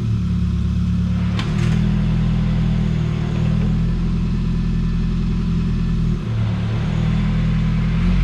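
Geo Tracker's four-cylinder engine running with its distributor timing newly reset, its note changing about a second and a half in and again near six seconds. A brief clatter comes as the note first changes.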